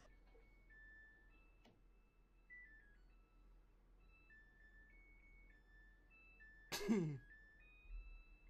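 Front-loading washing machine playing its electronic tune, a string of single beeping notes stepping up and down in pitch. About seven seconds in, a loud, short cry falling steeply in pitch cuts across it.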